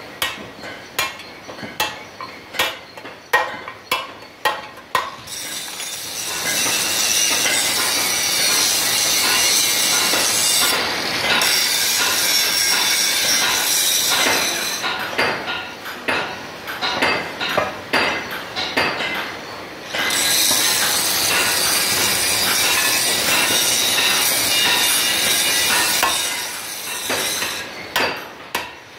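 Metal knocks and clinks on the cast-iron gearbox housing of an oil expeller as a bearing and gear are worked into its bore, coming about two a second at first, again in the middle and near the end. Between them run two long stretches of a loud steady hiss, louder than the knocks.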